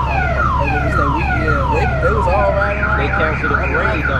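A car alarm cycling through its tones: a falling wail repeated about twice a second, switching to a fast warble about two and a half seconds in, over a steady low rumble.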